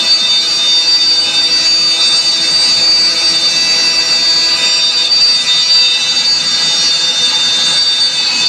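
CNC router spindle running at speed as it cuts 18 mm plywood: a steady high whine over a constant cutting noise.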